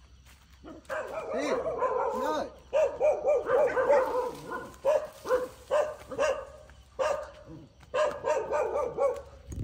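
A dog barking and yelping over and over, in runs of wavering, high-pitched calls that start about a second in.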